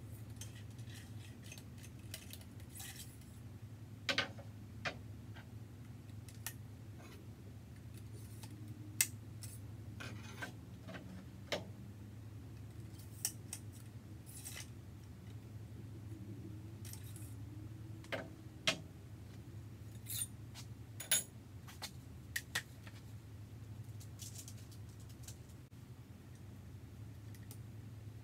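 Ramrod and rifle being handled while a .50 muzzleloader is loaded: scattered light metallic clicks and taps, a few of them sharper. A steady low hum runs underneath.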